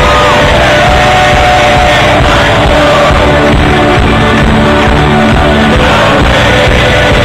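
Live folk band playing loudly, with banjo, upright bass, acoustic guitars and drums, and several voices singing together.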